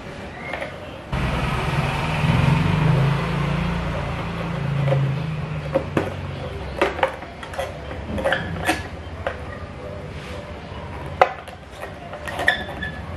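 Sharp plastic clicks and knocks from a Yamaha Mio i125 scooter's handlebar cover being worked loose by hand, coming thick and irregular in the second half. About a second in, a louder low rumbling noise starts abruptly and fades out over the next few seconds.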